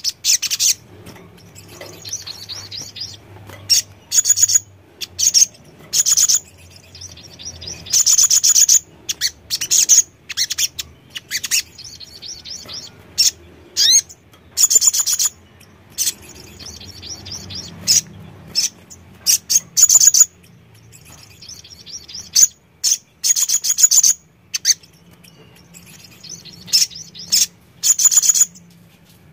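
Male olive-backed sunbird singing in short, loud bursts of rapid high trills, one burst every second or two.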